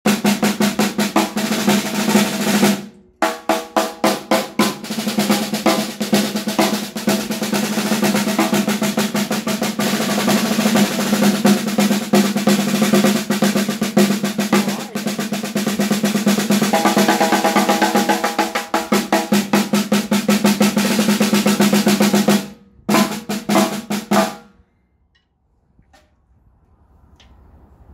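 PDP snare drum played with wooden sticks: fast rolls and rapid strokes, with a short break about three seconds in, stopping about twenty-four seconds in.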